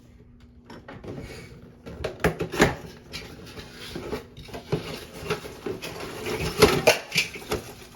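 Irregular clatter of knocks, clicks and scrapes from hands handling toilet flush-valve parts at the tank, starting about two seconds in.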